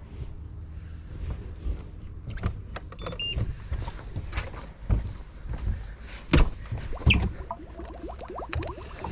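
Spinning reel being wound, a whirring that comes in short strokes near the end, with sharp knocks from handling the rod and gear in the small boat; two loud knocks stand out in the second half.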